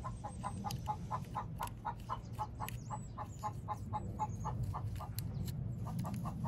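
Chicken clucking in rapid, evenly repeated notes, about five a second.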